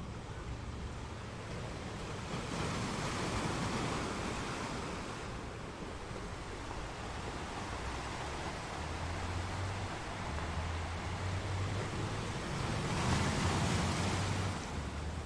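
Sea waves breaking on a rocky shore: a steady wash of surf with two surges, one about two and a half seconds in and a louder one near the end.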